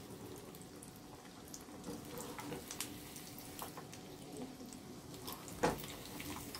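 Batter-coated paneer pieces deep-frying in hot oil in a small kadai, frying toward light golden brown: a soft, steady sizzle with scattered faint crackles. A wire skimmer knocks against the pan about five and a half seconds in.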